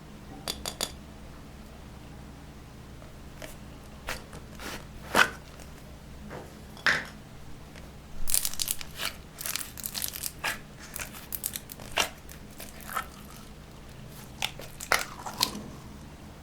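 Slime being worked by hand, giving scattered sticky clicks, crackles and tearing pops, with a dense run of crackling about halfway through.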